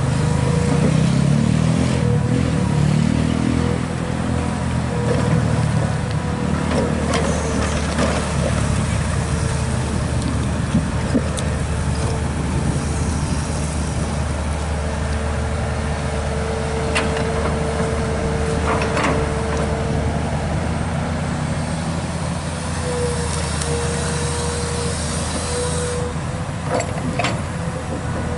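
Komatsu PC200 long-reach excavator's diesel engine running steadily as the arm and bucket dig, with a steady whine over it. A few sharp knocks from the bucket are scattered through.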